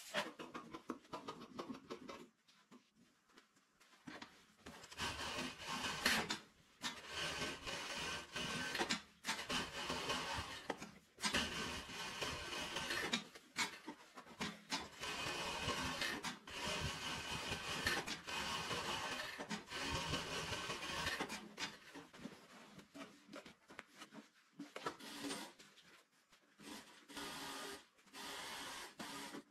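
JAKI industrial sewing machine running at speed in stretches of a few seconds, stopping and starting again between seams. At the start, scissors cut through brocade fabric.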